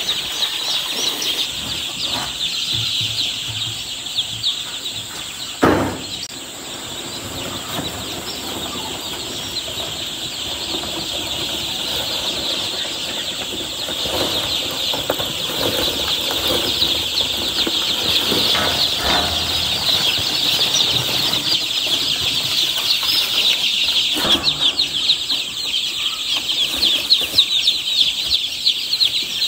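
A crowd of newly hatched chicks peeping without pause, many high cheeps overlapping, growing busier in the second half. There is one sharp knock about six seconds in.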